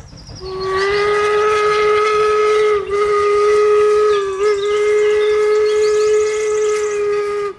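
Steam locomotive whistle sounding one long, steady blast of about seven seconds that wavers briefly twice, with steam hiss underneath.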